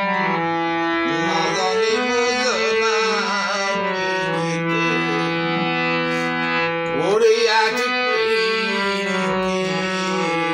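Harmonium playing a melody of long held reed notes, with a man's singing voice wavering over it about two and a half seconds in and again, loudest, around seven seconds in.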